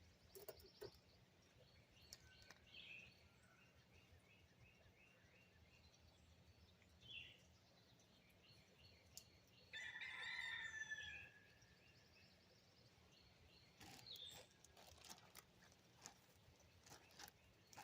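Quiet rural background with scattered faint bird chirps and, about ten seconds in, a single rooster crow lasting about a second and a half. A few faint clicks come near the end.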